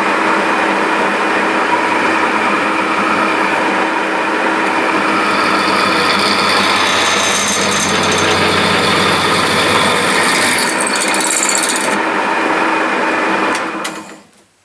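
1950s Meddings Pacera MB2 bench pillar drill running under power, its motor and belt drive giving a steady hum. From about five seconds in, a 10 mm twist bit cuts into 3 mm steel plate, adding a high hissing scrape that stops a couple of seconds before the end. Near the end the motor is switched off and the drill runs down.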